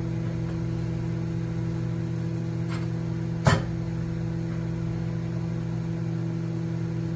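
Small countertop microwave oven running: a steady electrical hum with a sharp click about halfway through. It cuts off suddenly at the end.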